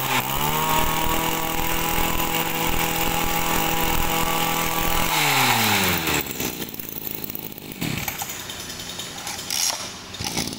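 Echo 240 brush cutter's small 24cc two-stroke engine held at high revs, running steadily for about five seconds, then switched off and winding down to a stop around six seconds in.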